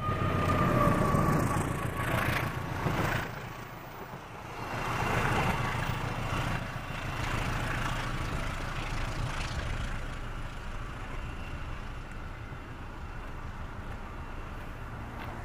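CC 201 diesel-electric locomotive hauling freight wagons passing close by, its diesel engine rumbling and wheels running on the rails, with the last of its horn note dying away, slightly falling, in the first second or so. The noise swells again about five seconds in as the wagons go by, then fades to a steady rumble as the train moves away.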